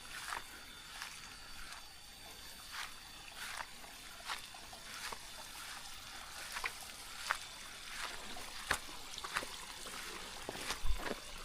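Footsteps of someone walking along a path, one short crunching step about every 0.7 s, over faint trickling water.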